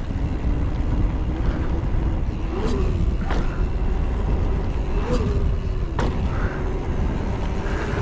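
Mountain bike riding downhill: wind buffeting the helmet camera and rumble from the tyres and frame, with a few sharp knocks and rattles from the bike over bumps.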